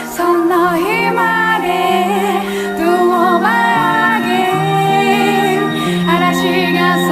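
Pop song with a woman singing a wavering melody over sustained synth notes.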